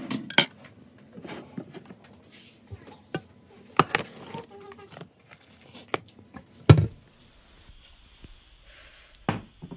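Scattered clicks and knocks from handling a ceramic mug of hot chocolate and its spoon, with one heavier dull thump about seven seconds in.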